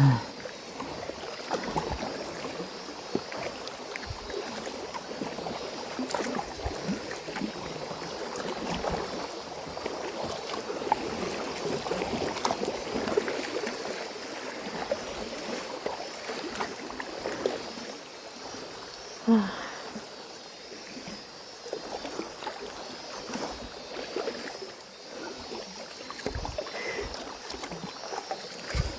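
Water splashing and flowing in an irregular, continuous stream of small splashes, with a steady faint high hiss. One short louder sound comes about two-thirds of the way through.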